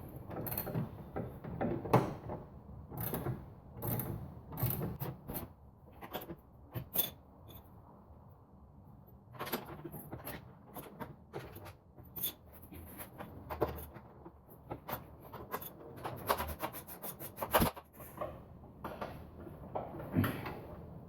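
Hand tools clicking and knocking on the Miata's front suspension as the upper control arm bolt is tightened: a run of irregular sharp clicks, with a short quieter pause partway through.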